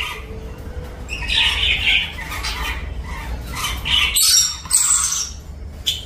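Caged lories (nuri parrots) squawking: a series of harsh, shrill calls, the loudest and highest coming between about four and five seconds in.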